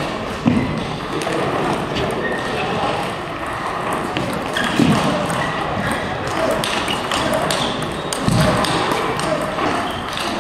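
Table tennis multi-ball drill: quick clicks of balls being struck by paddles and bouncing on the table, over voices in a large hall. A few dull thuds stand out, about every three to four seconds.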